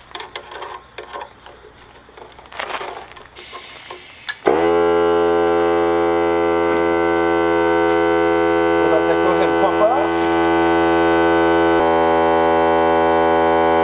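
Clatter of an air hose being coupled and handled, a brief hiss of air, then the Ryobi P739 18V cordless 1-gallon air compressor's motor and pump start about four seconds in and run with a steady, loud drone until cutting off near the end.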